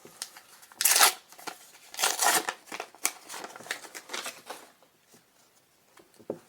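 Trading cards being handled and slid across one another, several short papery swishes over the first four seconds or so, then a pause.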